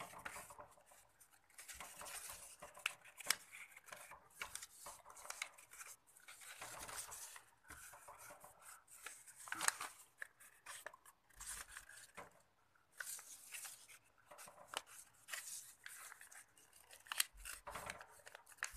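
A sheet of A4 paper being folded and creased by hand on a wooden tabletop: faint, intermittent rustling and scraping with short crisp crackles.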